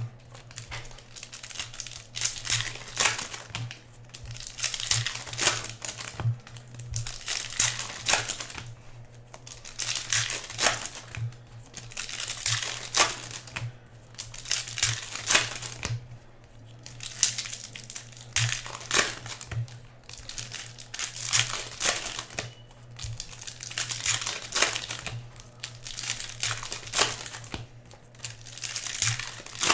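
Foil trading-card pack wrappers crinkling and tearing as hockey card packs are ripped open and handled, in repeated rustling bursts every second or two. A faint steady electrical hum runs underneath.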